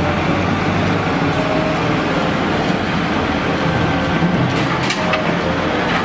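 Komatsu WA470 wheel loader's diesel engine running steadily under load as the loader lifts and tips a bucket of soil into a rail wagon.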